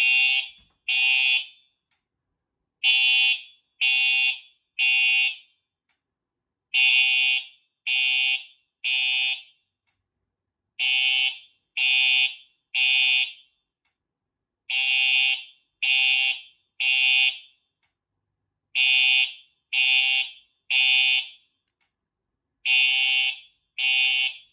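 Simplex SmartSync Truealert horn strobe (4906-9127) sounding the temporal code 3 fire alarm signal after the manual pull station is pulled. It gives groups of three half-second horn blasts about a second apart, repeating every four seconds. Very loud.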